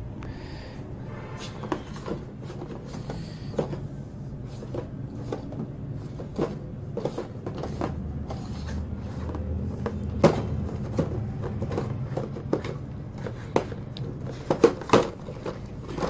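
Cardboard product box being handled and opened by hand: scattered taps, knocks and scrapes of the cardboard, with a sharper knock about ten seconds in and a quick cluster of knocks near the end.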